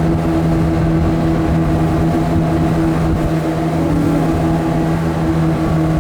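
A motorboat engine running steadily at one pitch, over the rushing water of river rapids.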